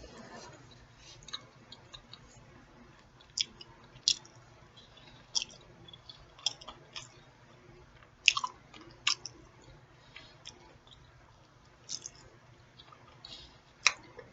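A person chewing food close to the microphone: irregular wet mouth smacks and clicks every second or so, the sharpest about eight and fourteen seconds in.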